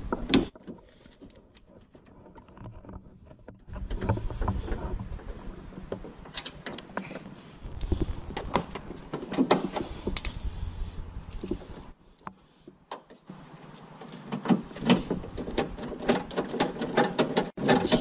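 Hands working inside a Toyota Yaris door cavity on the door lock mechanism: irregular clicks, knocks and rattles of metal parts, rods and clips, with low rumbles between them.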